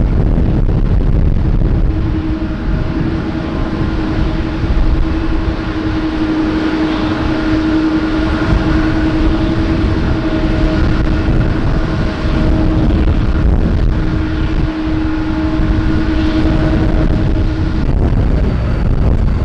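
Jet airliner engines running on a landing approach: a steady hum with a couple of overtones over a broad rush of noise, fading out near the end, with wind buffeting the microphone.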